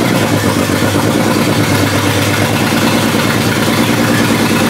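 Swapped BMW engine being started, turning over steadily but unable to keep running because the car has no fuel in the tank.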